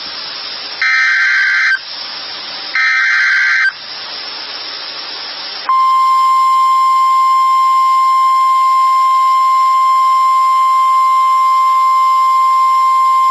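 NOAA Weather Radio alert signal. A SAME digital header ends in two warbling data bursts about a second long, a second apart, with radio hiss between them. Then, nearly six seconds in, the steady single-pitched warning alarm tone starts and holds, signalling that a new severe-weather warning is about to be read.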